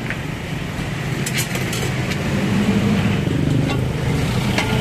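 Road traffic close by: a motor vehicle's engine running, its low rumble swelling about halfway through. A few light clicks come about a second in and again near the end.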